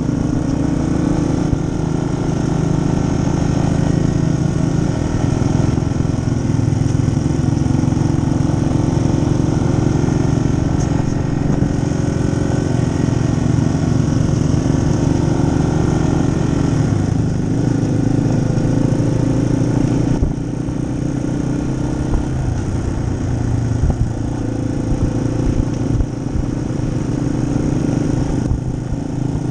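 2018 Yamaha XT250's air-cooled single-cylinder engine running steadily under way on a dirt trail. The engine sound eases briefly about twenty seconds in and again near the end.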